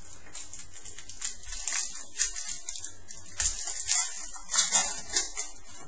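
Crinkling and tearing of a trading card pack's foil wrapper as the pack is opened: irregular crackly rustling, loudest in the second half.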